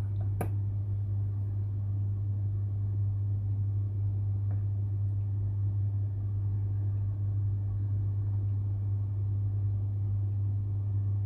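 Steady low hum, with one light click of a fork against a stainless steel saucepan just after the start.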